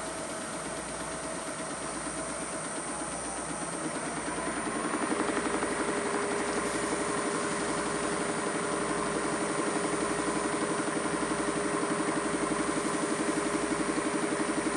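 Wood lathe motor running steadily with a spinning wood vessel, a cloth rubbing wax finish onto the turning wood. About five seconds in the hum rises in pitch and gets louder, then holds steady.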